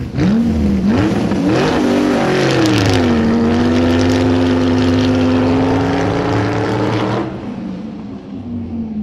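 Engine revving: quick up-and-down blips of the throttle in the first two seconds, then held at steady high revs. The noisy part cuts off about seven seconds in, leaving a lower tone that fades away.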